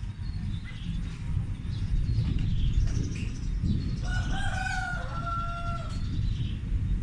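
A low, continuous rumble like distant thunder, of unknown source. A rooster crows once about four seconds in, for about two seconds.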